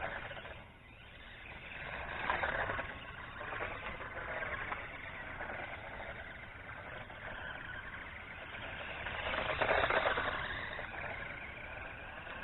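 Motor and drivetrain whine of a 1:18-scale HAIBOXING Hailstorm 4WD electric RC buggy driving at speed, swelling as it comes near and fading as it moves off, loudest about ten seconds in.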